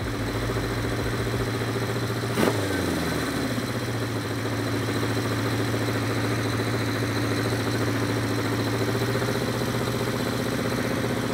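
Vintage Honda inline-four motorcycle engine running steadily at a fast idle during carburetor synchronization, its speed being turned back up toward the 2,000 rpm reference after a sync-screw adjustment made it drop. A single sharp click sounds about two and a half seconds in.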